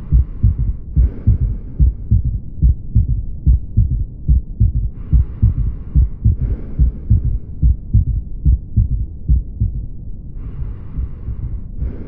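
Stethoscope recording of a heart with an S3 ventricular gallop: repeated low thudding beats in the 'Ken-tuc-ky' rhythm, a third sound in early diastole just after each lub-dub. A soft in-and-out breathing hiss comes three times: near the start, about five seconds in, and near the end.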